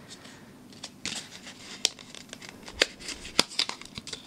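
Small cardboard puzzle-cube box being opened by hand: light rustling and sliding of the card flaps and inner tray, with scattered sharp clicks and taps, the loudest just before three seconds and about half a second later.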